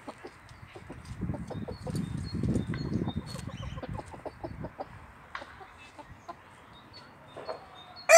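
Chickens pecking and scratching at the ground, a run of soft taps and rustles for a few seconds, with a few quiet clucks. Right at the end a Barnevelder rooster breaks into a loud crow.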